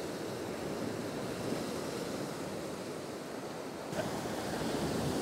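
Small sea swell washing onto the shore, a steady wash of surf that grows louder after a light knock about four seconds in.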